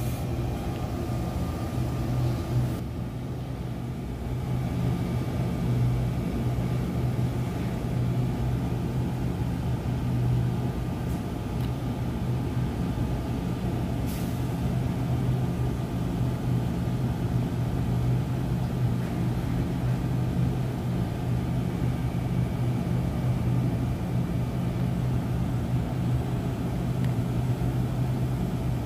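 NJ Transit Arrow III electric multiple unit standing at the platform, its onboard equipment giving off a steady low hum.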